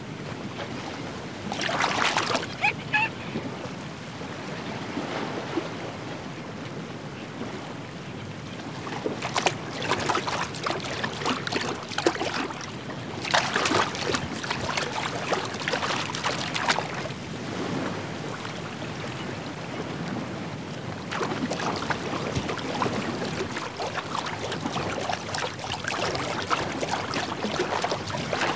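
Water splashing in several loud bursts over a steady wash of lagoon water and wind. These are young Laysan albatrosses skidding onto the water and running across it to take off.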